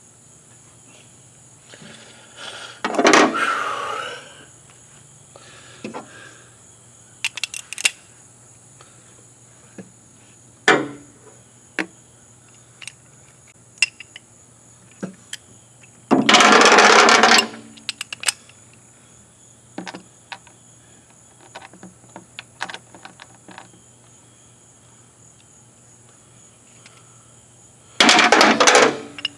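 Intermittent clinks and knocks of hand tools and metal parts being handled, with three louder scraping or rustling noises of about a second each, over a steady high insect chirr.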